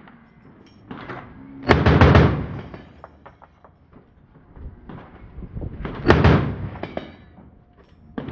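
Gunfire at an outdoor shooting range: two loud reports about four seconds apart, the first a little drawn out, with fainter cracks from other firing between them.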